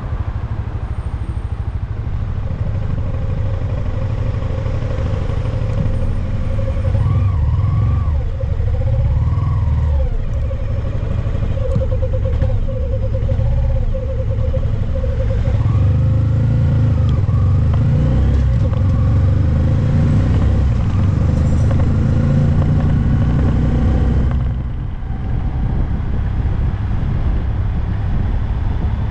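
2022 Honda Grom's single-cylinder engine running steadily under way, with road noise, recorded on the bike. The sound drops in level about 24 seconds in.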